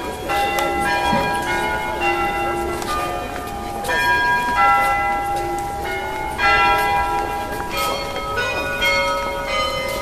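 Bells of the Peter and Paul Cathedral in St. Petersburg ringing a tune. Many bell notes of different pitches are struck in quick succession, several a second, each ringing on over the next.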